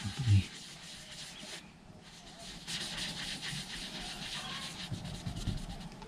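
Hand rubbing with polishing compound on the tractor's painted bodywork, buffing out a scratch: a steady scrubbing hiss that breaks off briefly about two seconds in, then resumes.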